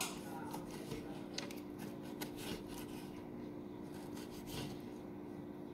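Kitchen knife cutting soft, ripe tomato on a wooden cutting board: a few faint, irregular slicing strokes and light taps of the blade on the board, over a steady low hum.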